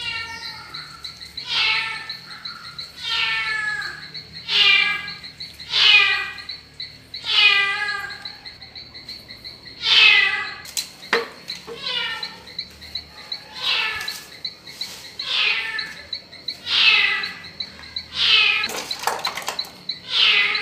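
An animal calling over and over: a falling call about every second and a half, over a steady high insect trill. A few clicks come near the end.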